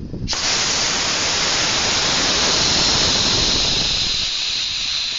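A loud, steady hiss that starts suddenly about a third of a second in, over a low rumble.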